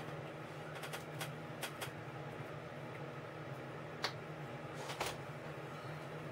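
Light clicks and taps of paper pieces and tools being handled on a cutting mat: a few quick clicks about a second in, one sharp click about four seconds in and another a second later, over a steady low hum.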